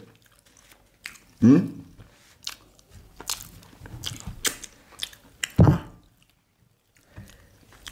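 Close-miked eating sounds: two people chewing and biting soft agege bread, beans and plantain, with wet mouth clicks and smacks. There is a brief hum about a second and a half in and a louder short burst a little past halfway.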